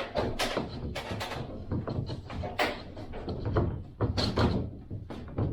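Irregular knocks, taps and clatter of soffit boards being handled and fitted into place overhead, a dozen or so sharp hits at uneven intervals.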